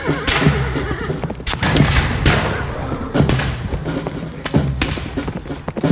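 Recorded battle sound effects played over the Waterloo Panorama's loudspeakers: heavy thuds and booms about once a second, with voices in the mix.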